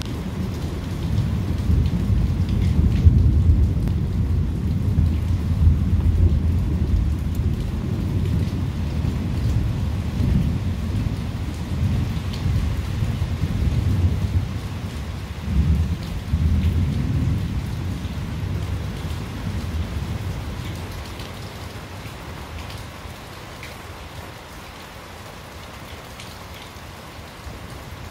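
Thunderstorm: long rolling thunder rumbling low, loudest in the first half with a second swell around the middle, then dying away, over steady rain.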